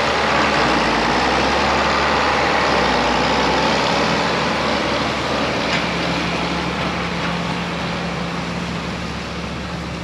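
Heavy diesel farm machinery running steadily: a low engine hum under a broad rushing noise that slowly eases off.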